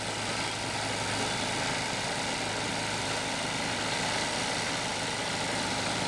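John Deere two-stage walk-behind snowblower running steadily, its engine under load as the auger and impeller throw snow out of the chute.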